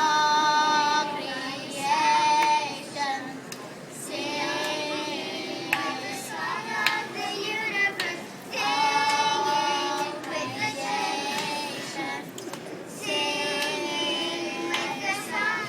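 Girls' choir singing, with long held notes in phrases separated by short breaks.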